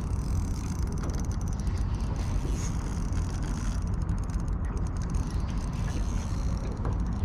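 Daiwa 2500 spinning reel clicking rapidly while a hooked pinky snapper is being fought on light line. The clicks are densest around the middle, over a steady low rumble.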